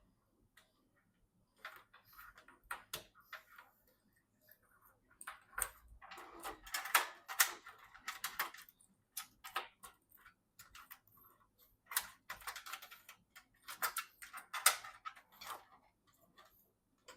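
Irregular clicks, taps and short rustles of computer parts being handled during a PC assembly, in two busy spells with quieter gaps between.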